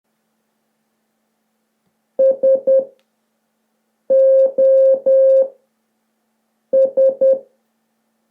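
Morse code SOS played as beeps of a single steady tone: three short, three long, then three short.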